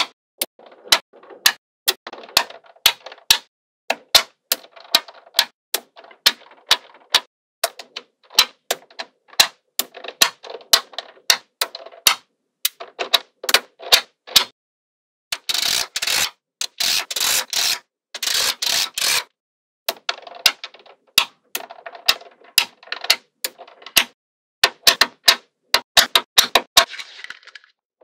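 Small magnetic balls clicking sharply as they snap together, single snaps coming every half second or so. Two longer runs of dense rattling clatter come a little past the middle.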